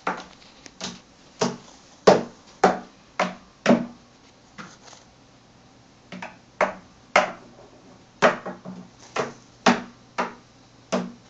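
A plastic Buzz Lightyear action figure knocked against a hollow tabletop again and again: sharp knocks about every half second, with a short pause a little before the middle.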